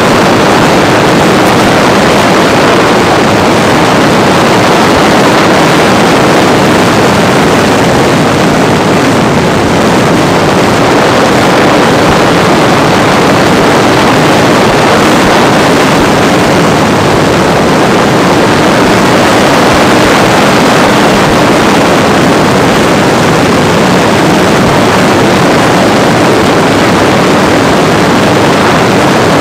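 Loud, steady rush of propeller and wind noise heard from on board a Parkzone T-28D Trojan RC plane in flight, its E-flite Power 10 brushless electric motor spinning an APC propeller, with wind buffeting the microphone.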